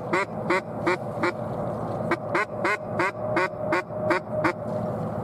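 Rapid series of loud, evenly spaced mallard-type duck quacks, about three a second. The series breaks off for a moment about a second and a half in, then runs on again and stops about four and a half seconds in.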